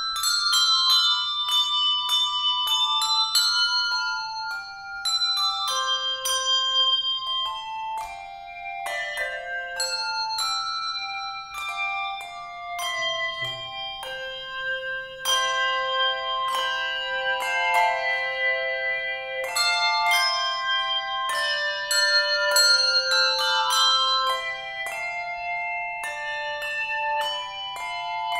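Handbell choir ringing a tune: many struck handbell notes, several sounding together in chords, each ringing on after it is struck.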